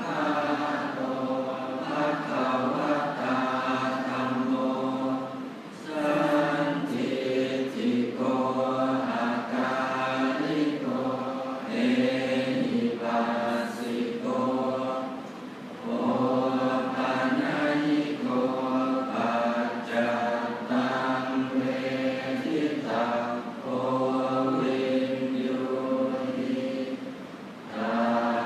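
Thai Buddhist monks chanting the Pali morning chanting service in unison, in long steady phrases broken by three short pauses for breath.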